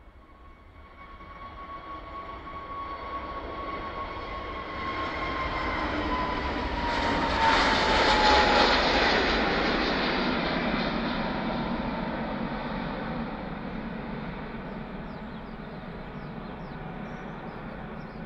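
Airbus A320 jet engines at takeoff power as the airliner rolls down the runway, lifts off and climbs past. The noise builds to its loudest about eight seconds in. A high whine drops in pitch as the jet passes, and then the sound slowly fades as it climbs away.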